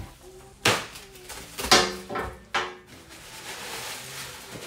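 Three sharp knocks with a short ring, about a second apart: hard figure parts and packaging being handled and set down while a boxed statue is unpacked.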